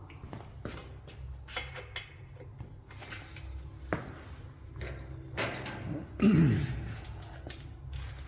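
Scattered clinks and knocks of hand tools and metal brake parts being handled, with a louder scraping sound about six seconds in whose pitch falls steeply.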